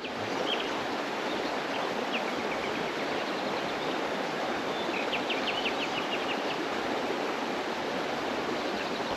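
River water rushing steadily. Brief high chirps sound over it, with a quick run of about eight of them around five seconds in.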